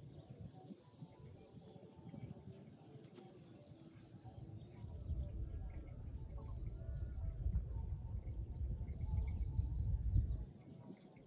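A cricket chirping in short trills of four or five pulses, repeated every couple of seconds. Under it a low rumbling noise builds from about halfway through, becomes the loudest sound, and cuts off shortly before the end.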